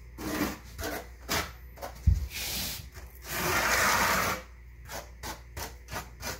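Notched trowel scraping and spreading thinset mortar on a plywood subfloor in uneven strokes. There is a dull thump about two seconds in, a longer scrape near the middle, and a run of short quick strokes near the end.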